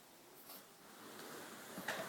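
Faint snuffling breaths from a Yorkshire terrier during a reverse-sneezing episode, with a short, sharper sniff near the end.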